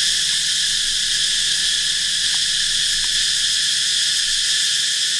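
Loud, steady, high-pitched chorus of insects shrilling without a break.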